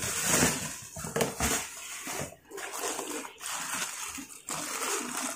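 Plastic bubble wrap crinkling and rustling as it is pulled apart and unwrapped by hand, in uneven bursts with a few short breaks.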